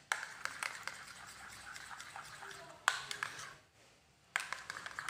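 A metal spoon stirring mashed papaya and honey in a small bowl, clicking and tapping against the bowl. There are a few sharper knocks, a short pause at about three and a half seconds, then more taps.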